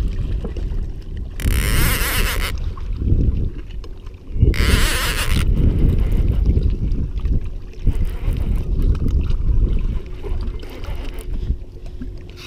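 Wind buffeting a rod-mounted action camera's microphone over lapping lake water, while a baitcasting reel is cranked during a fight with a bass. Two short bursts of hiss break through in the first half.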